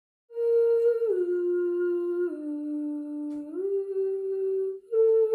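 A single high voice humming a slow, wordless tune. It holds a note, glides down two steps, rises again, then breaks off and starts a fresh note near the end.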